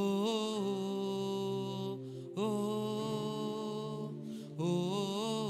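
Worship singing: a voice holds long 'oh' notes, starting a new one about every two seconds, over a steady, sustained low backing.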